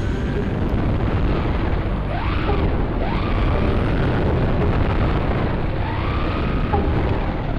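Brushless electric motor of a 1:10 RC car whining up and down in pitch as the throttle changes, over a steady rushing noise.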